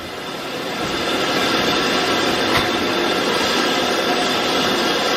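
BR Standard Class 5 4-6-0 steam locomotive working steam as it moves off: a loud, steady rush of steam noise that builds over the first second or so, with a single sharp knock a little after halfway.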